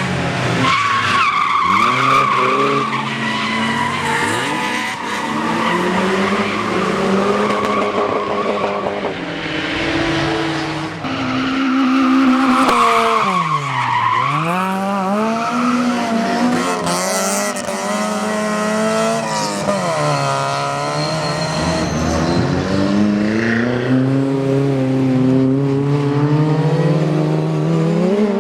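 Rally car engine being driven hard, its revs repeatedly climbing and dropping through the gears, with a deep drop and climb about halfway through, over tyre skidding noise as the car drifts.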